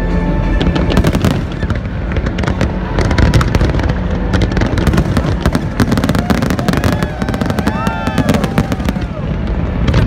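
Large fireworks display going off in rapid succession: a loud, dense crackle of many bangs a second over a continuous low rumble.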